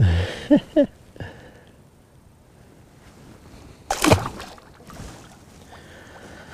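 A sucker fish released over the side of a boat, splashing into the lake about four seconds in. Before that, a knock and a couple of short squeaky sounds in the first second as the fish is handled.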